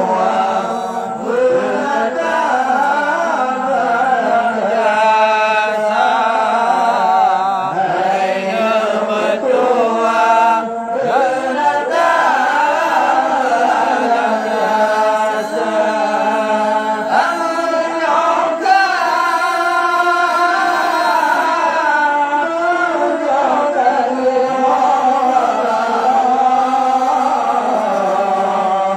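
A man singing an Acehnese qasidah, a devotional Islamic song, solo into a handheld microphone. The voice carries a chant-like melody in long phrases with wavering held notes.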